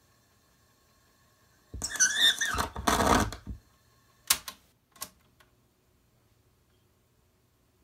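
Cassette deck and tape being handled: a loud clattering rattle lasting about two seconds, then a few sharp separate clicks.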